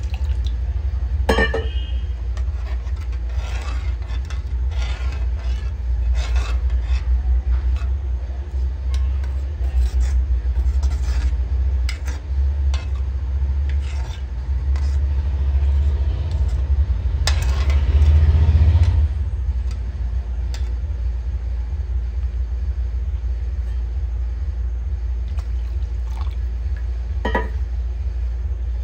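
A spoon stirring and scraping in a cooking pan, in short strokes over the first two-thirds, heaviest just before they stop. A steady low rumble runs underneath.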